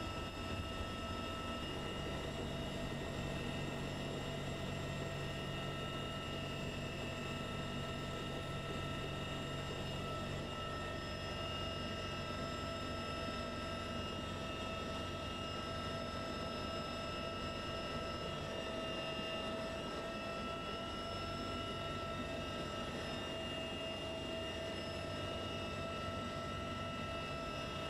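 Steady engine and rotor noise inside the cabin of a heavy transport helicopter in flight, with several constant high whining tones over the drone.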